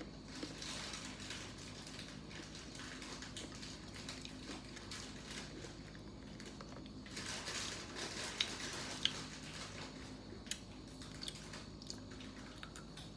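Faint chewing of a frozen chocolate-covered banana slice, with small crackling bites and a few sharp clicks about eight and nine seconds in.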